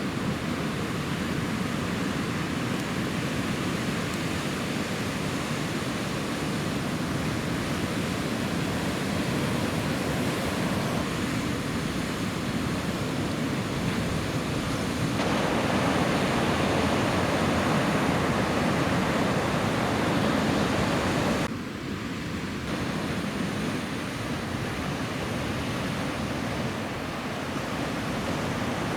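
Ocean surf and wind on the microphone, a steady rushing noise. It gets louder partway through, then drops suddenly about three-quarters of the way in.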